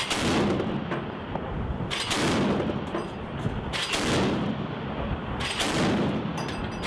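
Mk 38 25 mm machine gun system (M242 Bushmaster chain gun) firing: four heavy reports about two seconds apart, each followed by a long rumbling echo.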